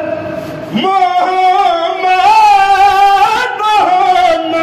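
A man singing a naat solo, a devotional hymn in praise of the Prophet Muhammad. He holds long drawn-out notes with a slight waver, starting a new note about a second in and moving to another near the end.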